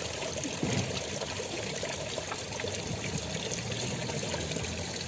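Fountain water splashing and trickling steadily into its stone basin.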